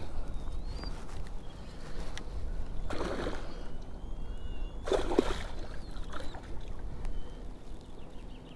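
Water splashing at the surface beside a kayak hull: two short splashes about two seconds apart, over a steady low rumble.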